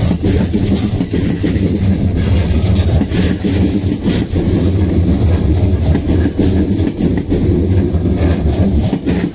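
JR Kyushu 787-series electric train of the 36+3 limited express pulling out of the station: a steady heavy rumble of the train moving along the track, with scattered clicks and knocks from the wheels and running gear.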